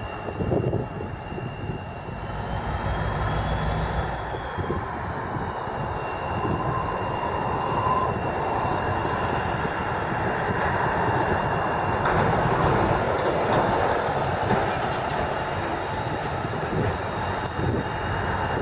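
Irish Rail 071 class locomotive's EMD diesel engine running as it moves slowly over curved yard trackwork, with steady high-pitched wheel squeal that rises and falls in pitch between about two and five seconds in.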